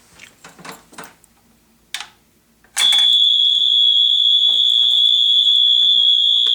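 Homemade fire alarm's Radio Shack buzzer, set off by pulling an Edwards 270-SPO pull station. After soft handling sounds and a click, a loud, steady, high-pitched tone comes on suddenly about three seconds in and holds.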